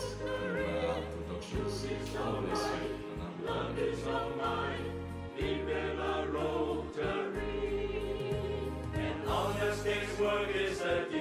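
Background music: a choir singing over a bass line of held notes.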